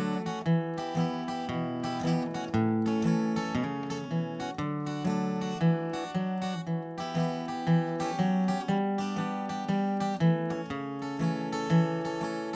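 Acoustic guitar strummed in a steady rhythm of chords, an instrumental break with no singing.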